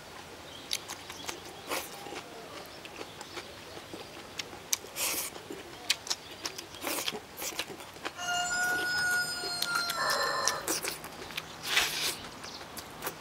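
Eating with chopsticks from a rice bowl: scattered clicks of the chopsticks on the bowl and short bursts of chewing, loudest near the end as the bowl is lifted to the mouth and the food shovelled in. A rooster crows once, for about two seconds, a little past the middle.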